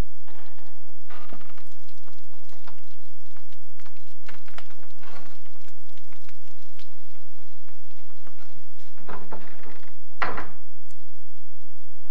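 Scattered knocks, scrapes and rustles of things being moved about, with a heavier thump about ten seconds in.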